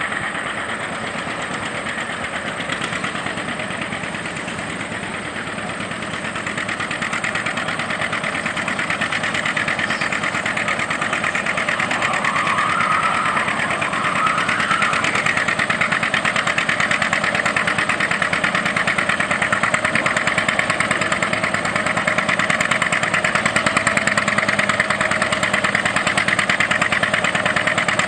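Antique John Deere two-cylinder tractor engine working hard under load as it pulls a weight-transfer sled, with a steady firing beat. It grows louder over several seconds and then holds steady.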